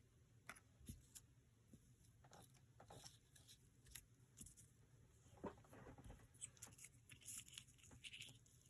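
Faint rustling of paper and scattered light clicks and taps as craft scraps and supplies are handled on a desk, coming more often in the second half.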